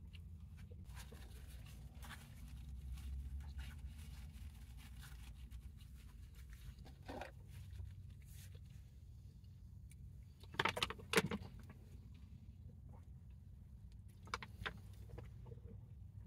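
Quiet eating sounds: chewing with scattered small clicks and crinkling of a paper food wrapper, loudest in a brief burst about eleven seconds in, over a steady low hum.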